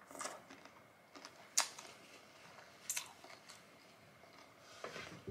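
Eating noises from a meal of jumbo prawns: a handful of sharp, separate clicks and crackles, spread a second or more apart, against a quiet background.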